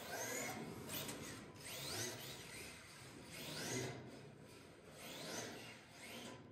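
Electric RC drift cars on a carpet track: their motors whine up in pitch with each burst of throttle, about four rising whines, over a steady scrubbing of tyres sliding on the carpet.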